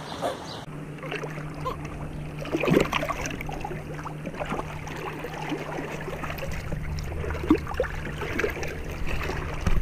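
Hands splashing and sloshing in shallow river water against rocks, with scattered small knocks, over a steady low hum.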